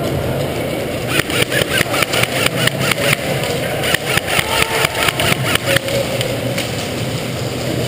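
Airsoft guns firing in a warehouse: a quick series of sharp shots, several a second in short runs, for about five seconds from about a second in, over a steady low hum.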